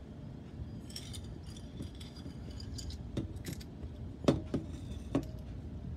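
Copper pennies clinking as they are picked out of a ceramic bowl by hand: a scatter of small metallic clinks, the loudest a bit past four seconds in.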